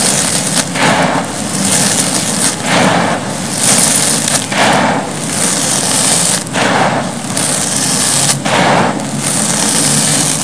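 Dry, gritty cement powder crumbling and crunching in the hands, then pouring down onto a dusty floor as a grainy, crackly hiss. It comes in surges about every two seconds, with a longer pour near the end.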